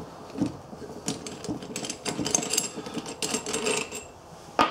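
Small metal parts being handled: light clicks and scrapes of a steel bolt, washers and a steel tube against a welded steel bracket, with a sharper clack near the end.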